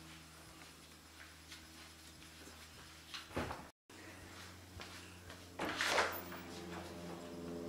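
A panelled interior door being handled and opened, its loudest sound, a brief rush of latch and swing noise, coming about six seconds in. A shorter, similar noise comes about three and a half seconds in, and a steady low hum runs underneath.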